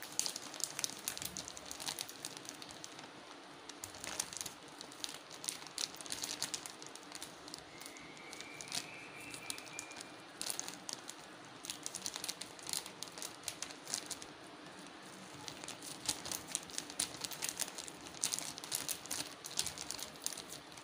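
Thin plastic bags worn over the hands as gloves crinkling and crackling in quick irregular rustles as the hands press and roll soft mashed potato into a ball.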